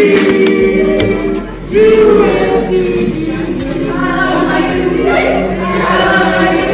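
A group of people singing together without accompaniment, holding long notes; the singing dips briefly about a second and a half in and then picks up again.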